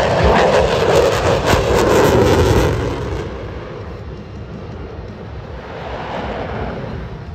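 F-22 Raptor's twin afterburning turbofan jets passing, loud for about three seconds, then fading, with a smaller swell near six seconds.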